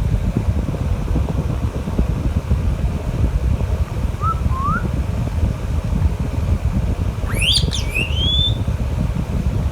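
Pet parrot, an Alexandrine or ringneck parakeet, giving two faint short rising whistles about four seconds in, then a louder sharp call that sweeps up into a rising whistle about three-quarters of the way through. A steady low rumble runs under it throughout and is the loudest sound.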